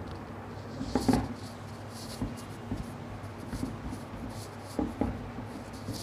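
Whiteboard being wiped with a cloth, irregular short scrubbing strokes against the board, the loudest cluster about a second in.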